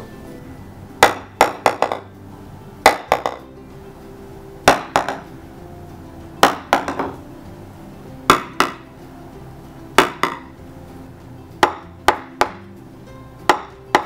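A golf ball dropped onto laminate boards over a cement slab, eight drops about two seconds apart, each a sharp clack followed by a few quick smaller bounces. The boards over the cheaper underlayments give a louder, more hollow sound. The last drops, on the board backed by FloorMuffler UltraSeal underlayment, are quieter.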